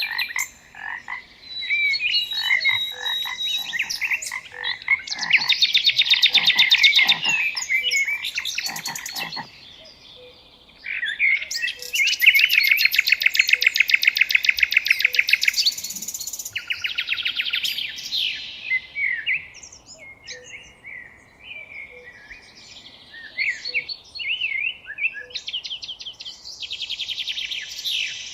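Frogs croaking in loud bouts of fast, rattling pulse trains, with birds chirping between the bouts and a faint low note repeating about every second and a half.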